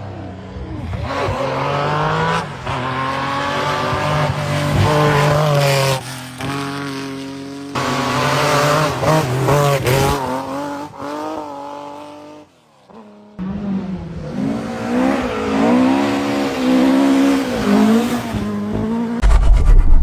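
Rally car engines revving hard, the pitch climbing and dropping through gear changes, in a string of short clips with abrupt cuts between them. There is a near-dropout about two-thirds of the way through.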